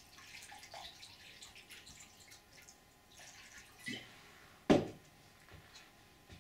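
Faint scattered ticks and small plops, with a louder single knock a little before the five-second mark.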